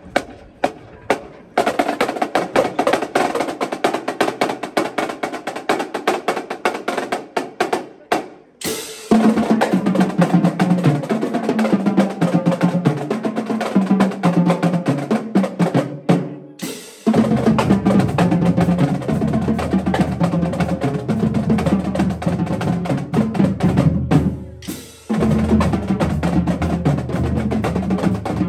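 Marching drumline of Pearl snare drums, tenor drums and bass drums playing a cadence: a few sharp stick clicks, then steady drumming from about a second and a half in. Around nine seconds in, the bass drums' stepping pattern of different pitches comes in. The playing breaks off briefly and restarts about every eight seconds.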